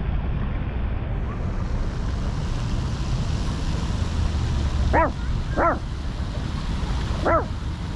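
A dog barking three times: two quick barks about five seconds in, half a second apart, and a third about a second and a half later, over a steady low rumble.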